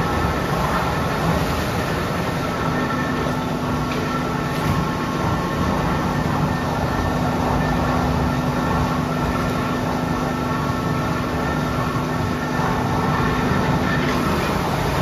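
Tannery machinery running steadily: a dense, even mechanical rumble. A constant hum comes in about two and a half seconds in and drops out near the end.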